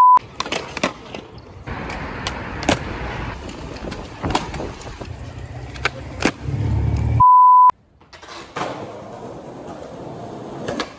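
Skateboard on stone paving: wheels rolling and sharp pops and clacks of the board against the ground, over street noise. A short steady test-tone beep sounds at the start and again about seven seconds in.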